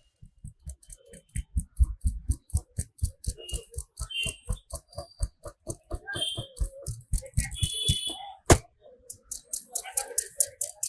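Rapid, rhythmic hand strikes of a barber's percussive head massage, about five a second, with one sharper strike about eight and a half seconds in.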